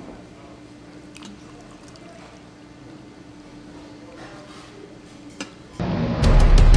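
Quiet room tone with a faint steady hum and a few light clicks. Near the end, water is poured into a ceramic mug, and loud music with a strong bass comes in at the same moment.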